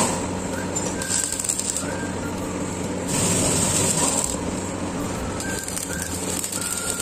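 Stick arc welding of a steel nut onto a hydraulic jack's oil-filler hole: the arc crackles and hisses in short runs that start and stop, over a steady low hum. A few faint bird chirps.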